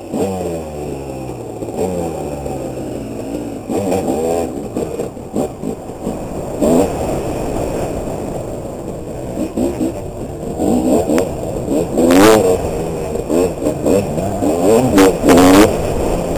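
Dirt bike engine heard close up from on the bike, revving up and easing off over and over as it is ridden hard, its pitch rising and falling. The loudest bursts of throttle come in the last few seconds.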